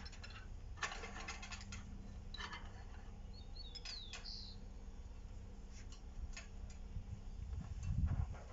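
Light metallic clicks and scrapes of a Stilson pipe wrench being fitted and set on a steel bar clamped in a bench vise, in several short clusters. A bird chirps briefly about four seconds in, and a low thump comes near the end.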